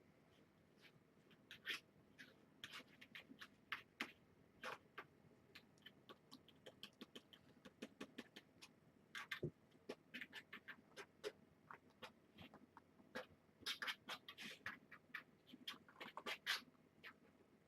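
Kittens moving about: faint, irregular small clicks and scratches, several a second in places, with no mewing.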